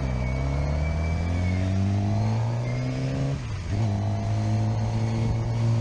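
Suzuki sportbike engine pulling under light acceleration, its pitch climbing slowly; about three and a half seconds in it dips briefly at an upshift, then climbs again.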